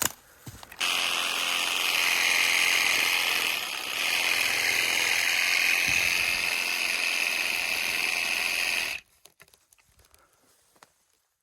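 Chainsaw running under load, cutting into a tree trunk for a hinge cut. It starts suddenly about a second in, dips briefly about four seconds in, and cuts off suddenly at about nine seconds.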